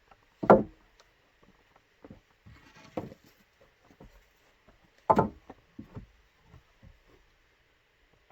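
Bamboo or wood being knocked and struck by hand: two loud sharp strikes about four and a half seconds apart, with lighter knocks and a brief rustle between them.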